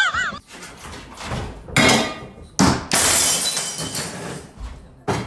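Glass shattering on a hard floor: a few sharp crashes, then the long tinkling rattle of shards scattering.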